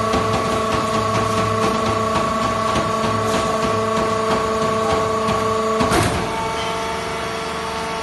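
Hydraulic power unit of a vertical cross-tying fiber baler running with a steady hum and whine, with faint ticking. About six seconds in, a short burst of noise comes, and the whine changes pitch and gets a little quieter.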